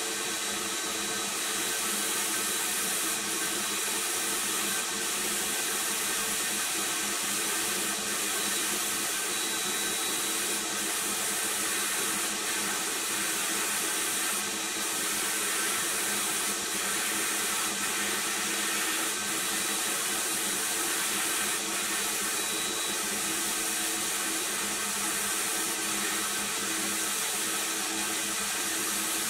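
Abrasive blast-cabinet nozzle hissing steadily as it strips old green paint and rust from a pressed-steel toy car body, with short dips in the hiss every couple of seconds. A steady machine hum runs beneath it.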